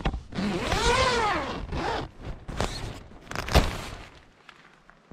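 Nylon tent door zipper being pulled open: a long rasping pull that rises and falls in pitch, then a shorter pull, with tent fabric rustling and a sharp knock about three and a half seconds in.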